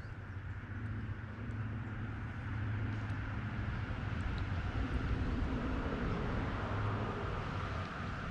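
A steady low engine drone over a hiss, swelling slightly in the middle.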